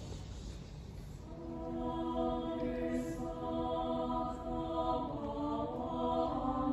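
Mixed choir singing sustained chords, entering about a second in and moving to a new chord near the end.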